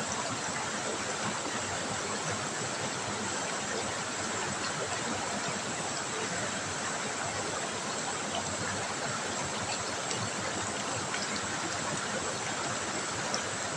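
River water trickling and flowing in a steady, even rush, with a few faint ticks of small splashes.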